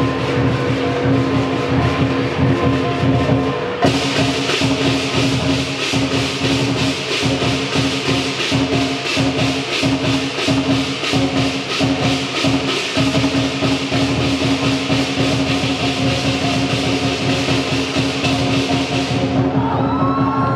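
Lion dance music: a drum beat with crashing cymbals, the cymbals coming in about four seconds in and keeping a fast, even beat, over steady pitched accompaniment.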